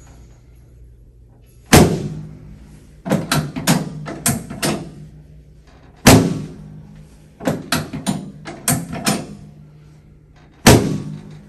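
Chiropractic adjustment on a treatment table: three heavy thumps about four and a half seconds apart, with a quick run of four or five lighter knocks between each pair.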